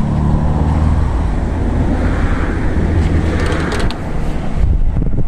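A car engine running steadily at idle. About four seconds in, its note gives way to wind buffeting the microphone.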